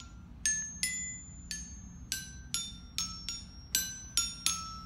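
Toy xylophone with colourful metal bars struck with a mallet: about eleven single ringing notes, a third to half a second apart, wandering up and down in pitch.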